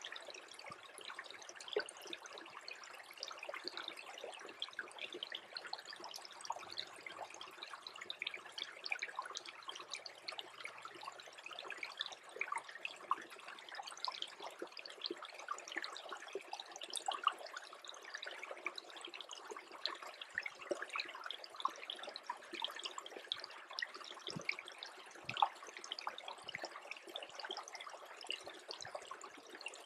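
Small brook trickling steadily, a dense patter of tiny drips and splashes over a constant water hiss, the stream in the middle of freezing over.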